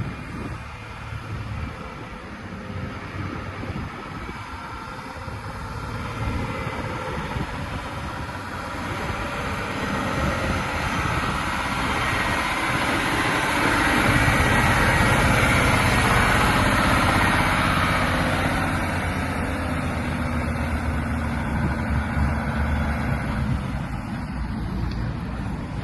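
Heavy Mercedes-Benz Actros 8x4 truck's diesel engine running steadily. It grows louder from about a third of the way in to a peak around the middle, then eases off.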